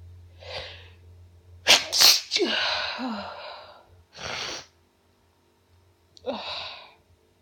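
A woman sneezing. A breath in comes first, then a loud, sharp sneeze about two seconds in that trails off into a long voiced exhale. Another short breath follows, and a second, quieter voiced burst comes near the end.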